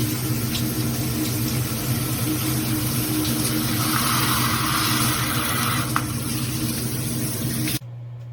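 Water spraying from a dual rainfall and handheld shower head in a steady hiss over a low hum; the spray cuts off suddenly near the end, leaving only the steady hum.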